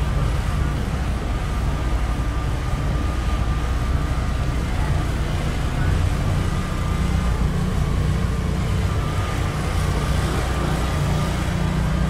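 A car engine idling steadily.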